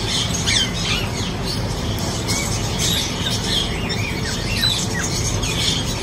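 Rose-ringed parakeets squawking and chirping: many short, mostly falling high calls, several a second, over a steady low rumble.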